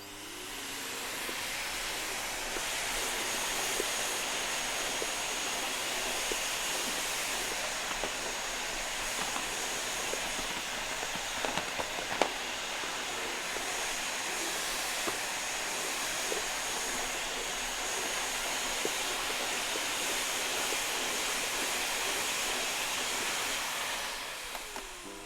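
Vacuum cleaner running steadily: an even rushing hiss of air with a faint high whistle, swelling in at the start and dipping near the end, with a few light clicks about halfway through.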